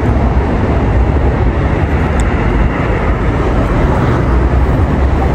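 Wind buffeting the microphone, a loud, steady, low rumbling noise with no pitch to it.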